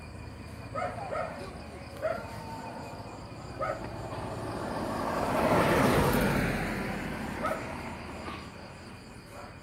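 A car drives past, its engine and tyre noise swelling to a peak about six seconds in and then fading away. A dog barks faintly several times.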